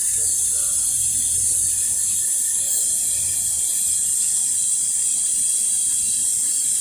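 Steady high hiss of compressed air venting from the coupler of a Class 385 electric multiple unit as its two units uncouple, holding at an even level throughout.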